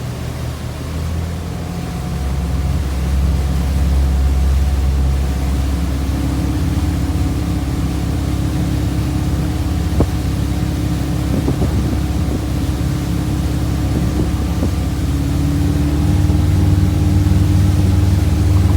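Boat engine running under way as it is throttled up from about 1,500 toward 2,000 RPM; its pitch and loudness step up about two seconds in and again near the end. A single sharp click about halfway through.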